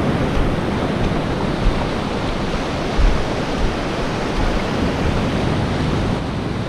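Steady wash and surf of shallow sea water over a reef flat, with a low rumble of wind on the microphone. It cuts off suddenly at the very end.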